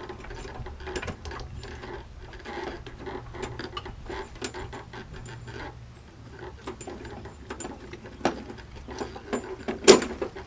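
Irregular light mechanical clicking and rattling, with two louder knocks: one a little after eight seconds and a sharper one near the end.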